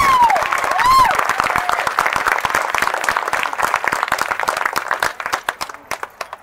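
Crowd clapping and cheering, with a couple of whoops in the first second; the clapping thins out and fades away near the end.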